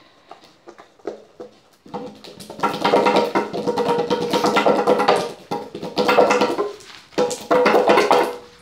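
Pestle stirring and grinding oil paint paste round a bowl: a few light taps, then about two seconds in a loud scraping with a steady ringing tone, broken briefly twice.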